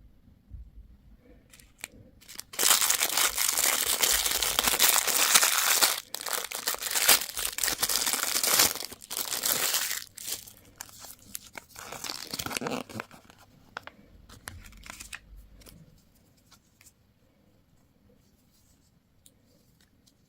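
Candy or toy packaging wrapper being torn open and crinkled, loud for several seconds, then a few lighter rustles and clicks that die away about three-quarters of the way through.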